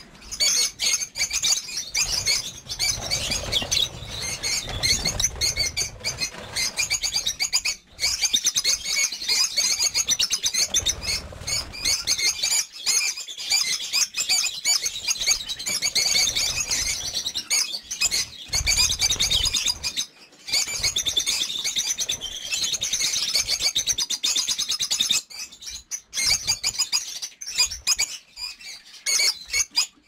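A flock of peach-faced lovebirds chattering nonstop in dense, high-pitched chirps, with the flutter of wings as birds take off.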